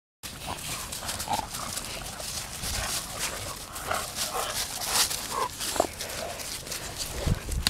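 Short, scattered animal calls, a few seconds apart, over steady rustling and clicking noise.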